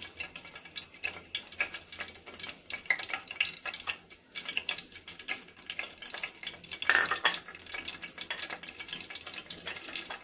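Whole spices (bay leaves, cinnamon, cumin seeds and black peppercorns) crackling and sizzling in hot oil in a nonstick frying pan. There is a louder burst of sizzling about seven seconds in, as more spices go into the oil.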